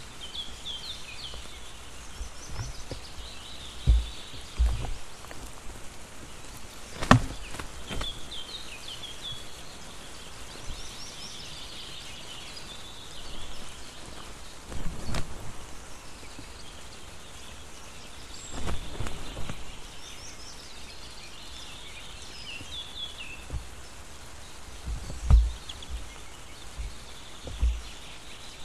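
Steady rain hiss over a wild nest, with repeated high, chattering bird calls in short bursts throughout. A few sharp low thumps stand out above everything else.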